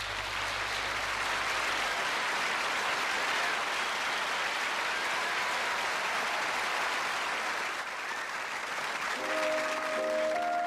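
Audience applauding steadily. About nine seconds in, a piano starts playing sustained chords while the applause dies away.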